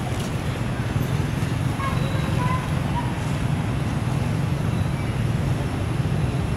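Steady low rumble with a hiss over it, with a few faint short high chirps about two to three seconds in.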